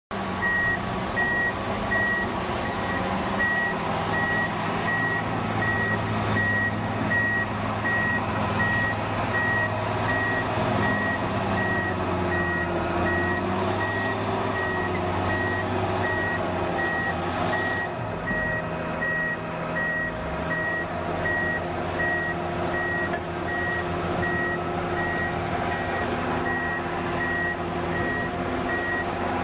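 Bulldozer's diesel engine running under a steady reversing alarm, one high beep repeating at an even pace as the machine backs up.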